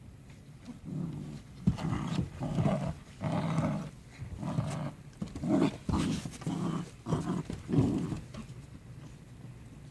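Jindo dogs growling in rough play-fighting, a string of about eight short growls with a few sharp snaps among them.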